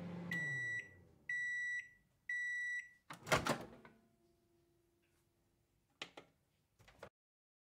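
Microwave oven sound effects: the running hum winds down as the cycle ends, three beeps sound about a second apart, then the door latch clunks open. Two short clicks follow near the end.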